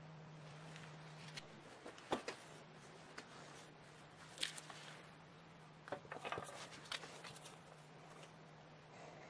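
Scattered light clicks and taps, like small parts being handled on a workbench, over a faint steady hum.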